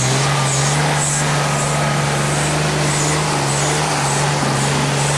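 Jeep Wrangler engine running with a steady low drone that keeps one pitch as the Jeep crawls along a snowy trail.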